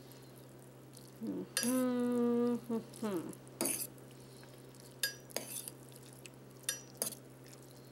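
A metal fork stirring cooked instant ramen noodles in a stainless steel pot, with several sharp clinks of the fork against the pot. About two seconds in, a short held hum with a falling tail stands out above the stirring.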